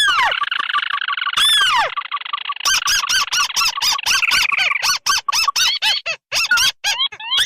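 Recorded lure calls of crakes, the calls of two species (tikusan merah and tikusan putih) played together: a fast series of short repeated notes overlaid with arching, downward-bending calls.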